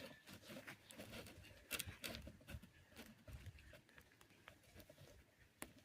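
Near silence with faint, scattered soft clicks and rustles of hands digging through damp potting soil in a fabric grow bag.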